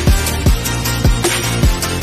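Background music: an electronic track with deep kick drums that drop in pitch, about two beats a second, and sharp snare-like hits between them.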